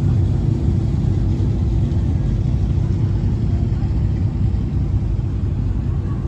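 Steady low rumble of a river cruise boat under way.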